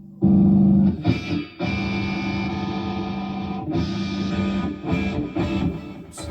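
Strandberg Boden Essential 6 electric guitar played through a Headrush amp-modelling patch with some drive: a loud chord struck and choked, then a chord left to ring for about two seconds, then shorter choppy chords and notes.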